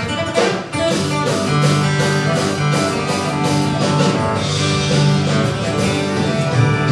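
Live country band playing an instrumental passage: guitar picking over bass and drums.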